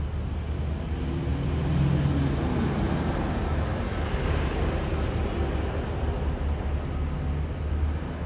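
Road traffic passing close by: a bus drives past with engine hum and tyre noise that swell and then fade, over a steady low rumble.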